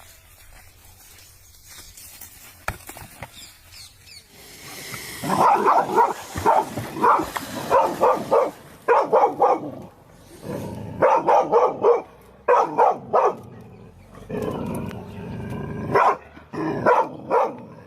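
An animal barking in quick runs of loud calls, starting about five seconds in, after a few faint knocks.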